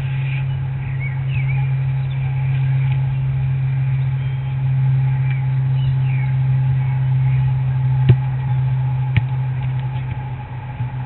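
Steady low hum with birds chirping over it, and two sharp knocks about a second apart late on.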